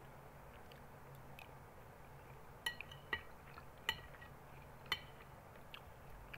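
Metal spoon clinking against a bowl as food is scooped: four sharp clinks, each ringing briefly, starting a little before halfway through.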